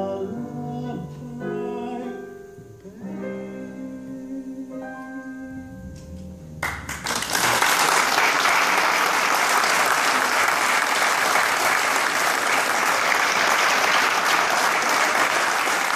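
The last soft chords of a slow song on a digital keyboard piano, dying away; about seven seconds in, loud, sustained applause from the audience and choir takes over.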